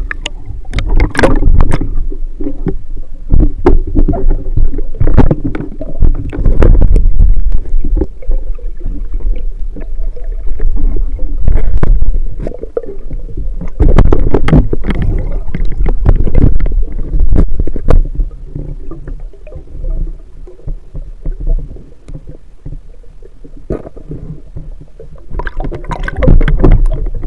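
Muffled underwater rumble and rushing water heard through a submerged camera's microphone, with repeated knocks and clicks from handling the camera and spear.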